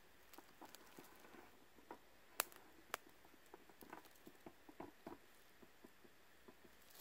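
Near silence with faint scattered ticks and crackles, and two sharper clicks about two and a half seconds in and half a second later.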